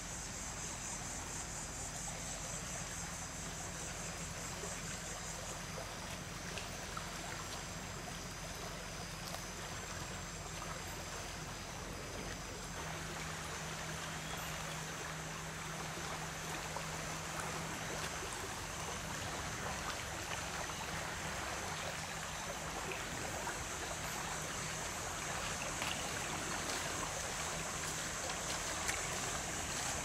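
Creek water flowing steadily, with insects buzzing in a high, even band over it that fades in the middle stretch and comes back stronger near the end.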